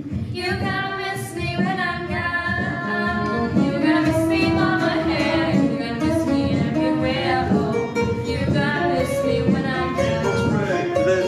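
A group of girls singing a song together to an acoustic guitar.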